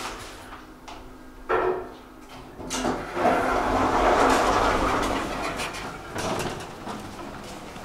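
Automatic sliding doors of a Thyssenkrupp elevator: two sharp clunks, then the doors sliding for about three seconds, with a smaller bump as they settle.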